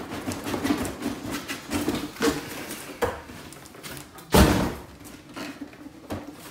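Cardboard packaging being handled: a boxed action figure slid out of a cardboard box, with scraping and scattered knocks and one loud thump about halfway through.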